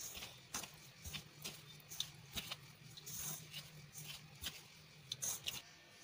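A hand rubbing oil into maida flour in a stainless-steel bowl: faint, irregular scraping and rustling, with light clicks as the fingers scrape the metal.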